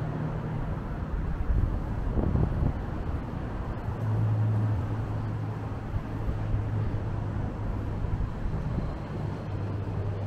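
City street traffic: vehicle engines running with a low steady hum, and a brief louder swell about two seconds in.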